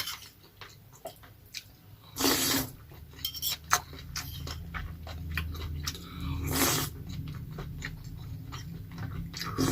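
A person chewing goat offal from a sour soup at close range, with many small wet mouth clicks and two short louder noises, about two seconds in and again past six seconds.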